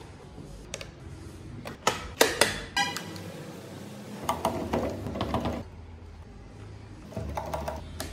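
Clicks and light knocks of a hand-carved wooden model pickup truck's parts being handled on a workbench, with a quick run of ticks a little under three seconds in and a longer rattling stretch around the middle.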